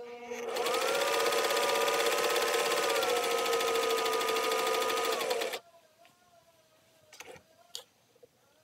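Singer 500A sewing machine stitching at speed: a motor whine over rapid needle strokes. It builds up about half a second in, drops a little in pitch partway, and stops abruptly after about five seconds. Two faint clicks follow near the end.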